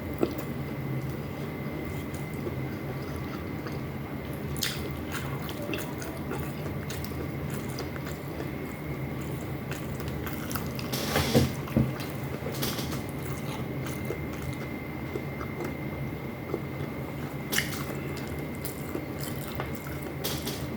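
Close-up eating sounds: a person chewing with soft mouth sounds and scattered small clicks, with a louder flurry about eleven seconds in. A steady low hum runs underneath.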